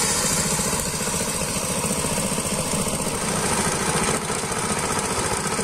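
Small single-cylinder petrol engine running steadily with a fast even pulse, powering a wooden drum-type rice thresher while rice stalks are fed into it.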